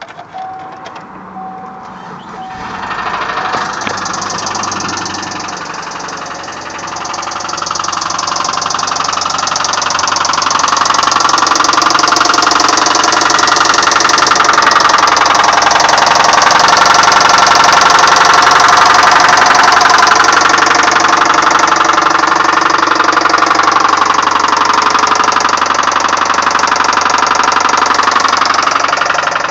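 A 1999 Subaru Forester's flat-four boxer engine starts about three seconds in and runs with a rapid, steady knock, growing louder over the first ten seconds. The knock is the sign of a failed connecting-rod bearing: rod knock.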